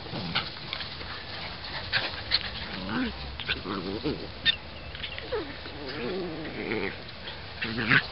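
Puppies play-fighting, with short growls and sharp yips scattered through, and a run of wavering growls in the middle.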